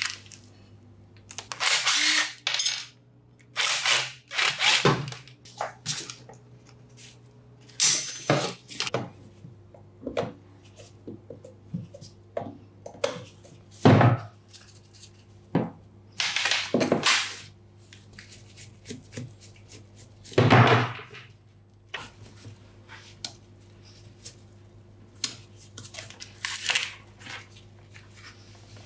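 Metal tool parts being handled and worked by hand: irregular scrapes, clinks and knocks in bursts of about a second, with pauses between them.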